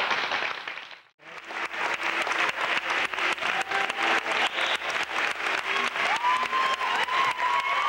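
Audience clapping. It is broken by a brief dropout about a second in where the tape cuts, then clapping from a larger crowd resumes and keeps going.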